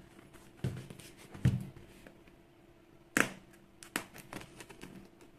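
A small knife cutting the packing tape on a cardboard parcel, with scattered rustles, taps and knocks as the box is handled. A low thump comes about one and a half seconds in, and the sharpest, loudest click about three seconds in.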